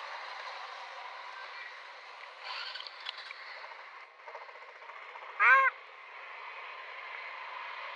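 One loud, short animal call about five and a half seconds in, rising then falling in pitch, with a fainter call about two and a half seconds in, over a steady background hiss.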